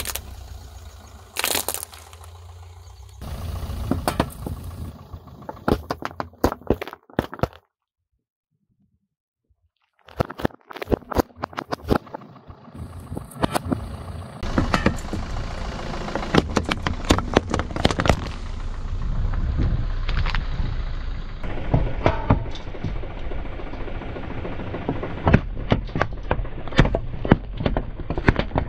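A car tyre rolling slowly over things on asphalt and crushing them, with rapid runs of sharp cracks and crunches from breaking plastic and drink cans over a low rumble from the car. About eight seconds in there is a short silence.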